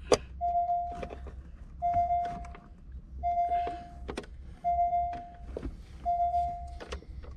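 A car's electronic warning chime repeats about every second and a half, each time one steady tone lasting under a second, with sharp plastic clicks in between as trim and wiring connectors are handled.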